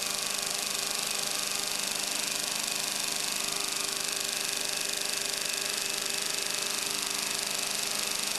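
Steady electrical hum and high buzz from a running experimental rig (a small Tesla coil circuit and a spinning CR-Kromrey converter powering a plasma tube). It is unchanging, with several steady tones under a strong high hiss.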